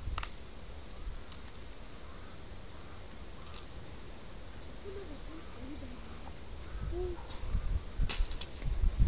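A knife peeling green cooking bananas by hand: a few sharp clicks and scrapes of the blade on the skins, over a low rumble of wind on the microphone. Two clicks come close together near the end.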